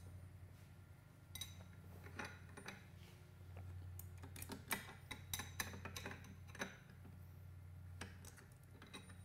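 Two wrenches clinking on a CNC router's collet nut as it is loosened for a bit change: a scatter of light metallic clicks and ticks, busiest about four to seven seconds in.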